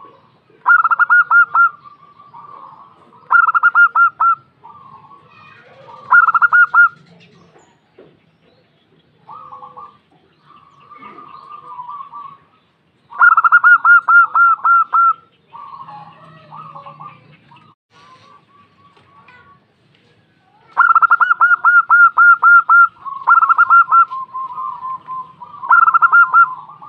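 Female zebra dove (perkutut) calling: seven loud bursts of rapid staccato cooing notes, about five a second, each burst lasting one to two seconds, with fainter, softer coos between them.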